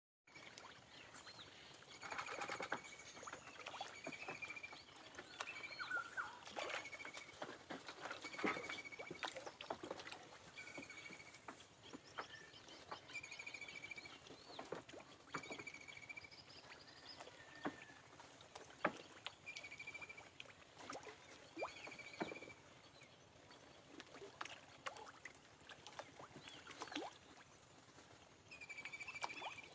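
Farmed fish feeding at the water surface: an irregular patter of small splashes and pops. A short, high call repeats every second or two, which fits a bird.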